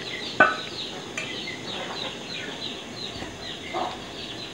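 Birds chirping in the background, many short falling chirps, with one sharp knock about half a second in.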